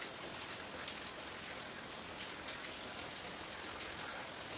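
Heavy rain falling steadily, with many small drop impacts.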